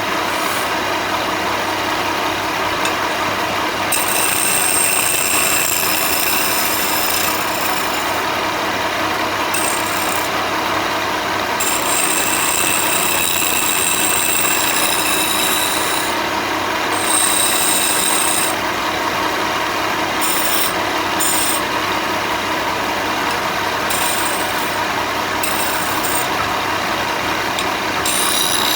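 Power tool working reclaimed railway-sleeper timber: a steady abrasive noise, with a high whine that cuts in and out every few seconds.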